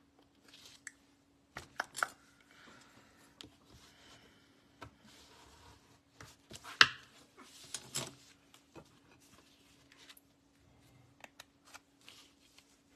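Cardstock being handled on a craft mat: scattered light paper rustles, slides and taps as a panel is pressed and straightened, with one sharper tap about seven seconds in.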